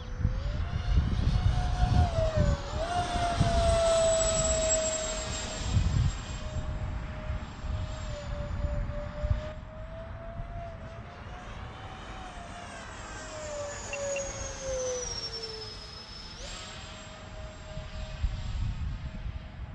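Twin 70 mm electric ducted fans of a radio-controlled F-22 model jet in flight: a high whine whose pitch follows the throttle. It slides down for several seconds past the midpoint, then jumps back up suddenly. Wind buffets the microphone, mostly in the first few seconds.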